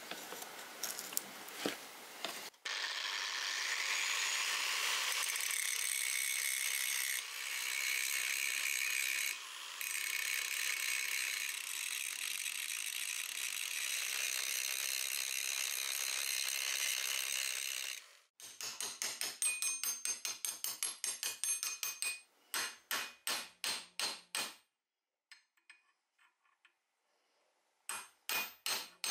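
Angle grinder with an abrasive disc running against the rusty steel of a cleaver blade, a steady high hiss for about fifteen seconds after a few small clicks at the start. Then come quick, even rasping strokes, about four a second and then slower.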